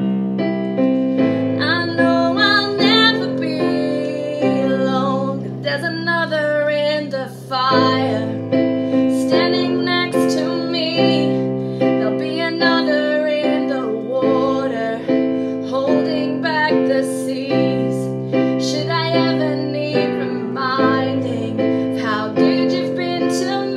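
A woman singing a worship song, accompanying herself on a piano keyboard with held chords.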